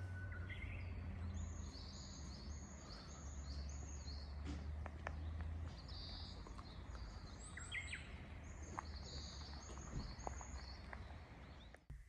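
Birds chirping in a run of short high notes, about two a second, over a low steady hum and a few faint clicks; everything cuts off just before the end.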